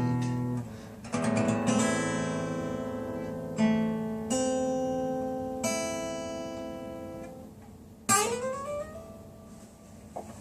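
Acoustic guitar closing a song with a few strummed chords, each left to ring out and fade. About eight seconds in, a last sharp note slides down in pitch and dies away.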